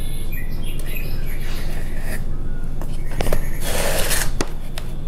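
Small plastic plant pot of succulents handled and set down on a wooden tabletop: a few light knocks and a short rustle about three and a half seconds in, over a steady low hum.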